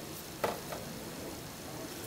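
Quiet workshop room tone with one light tap about half a second in and a fainter one shortly after.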